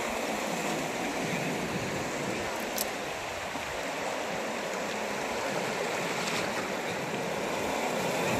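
Small sea waves breaking and washing over a flat shelf of dead coral rock, a steady rush and fizz of water as the rising tide spills across the reef.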